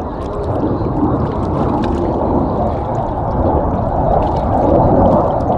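Jet noise from a CF-18 Hornet's twin General Electric F404 turbofans as it manoeuvres in flight: a deep, steady rush of sound with no clear pitch, growing a little louder near the end.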